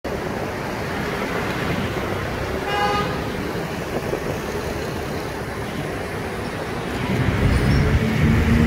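Steady street traffic and road noise heard from a moving vehicle, with a brief vehicle horn toot about three seconds in. The rumble grows louder from about seven seconds, with a steady low drone.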